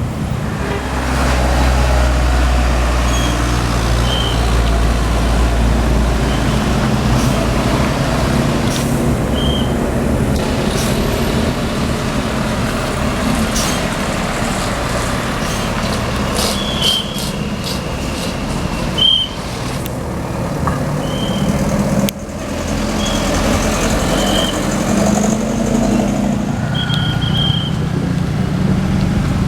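Large diesel tour bus engine running close by with a low, steady rumble, amid road traffic; the sound drops abruptly about 22 seconds in, then picks up again.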